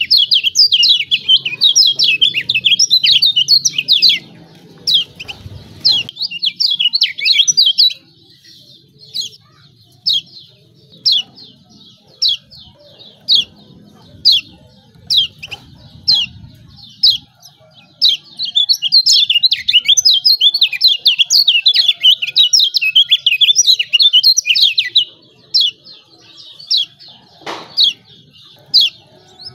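Kecial kuning (a Lombok white-eye) giving its rapid, high 'ciak ciak' chattering calls. There are two long dense bursts, one at the start and one from about 18 to 25 seconds, with single chirps scattered between them.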